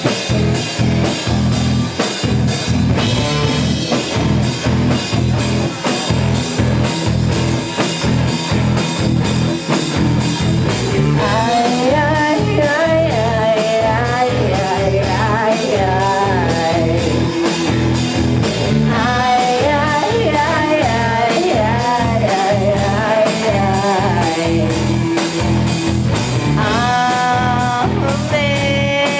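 Live rock band playing: distorted electric guitars, bass and a drum kit keeping a steady beat. A singer comes in about eleven seconds in and sings over the band.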